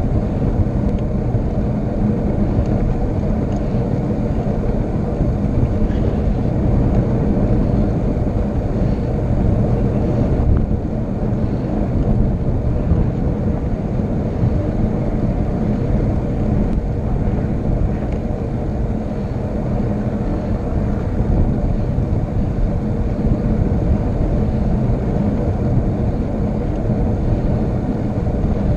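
Steady wind rushing over the microphone, mixed with road noise, during a fast downhill descent.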